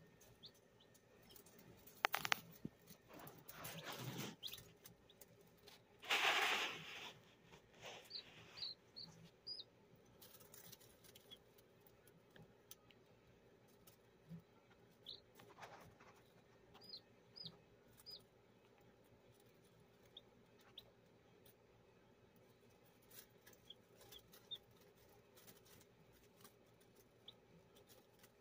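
Day-old Belgian Liège x Donnelly's Pyle cross chicks peeping faintly now and then, short thin high peeps, some in quick runs. There are scratchy rustles in dry leaf litter, the loudest lasting about a second some six seconds in.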